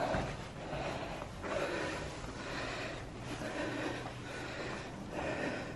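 A man breathing hard, close to the microphone, each breath a noisy swell about once a second, as he catches his breath after climbing.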